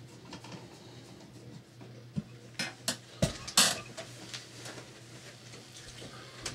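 A few sharp clicks and clinks of small hard objects, bunched in the middle, over a low steady hum.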